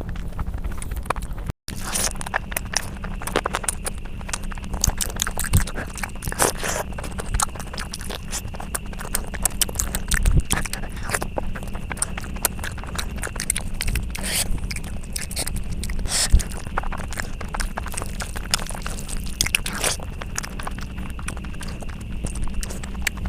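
Close-miked eating: a person chewing and crunching food, with many small wet clicks and crackles over a steady low hum. The sound cuts out briefly about a second and a half in.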